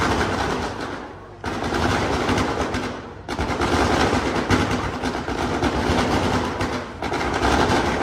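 Fireworks display: a dense, continuous run of launches, bangs and crackle from volleys of aerial comets and crackling stars. Brief lulls come about a second in, near three seconds and near seven seconds.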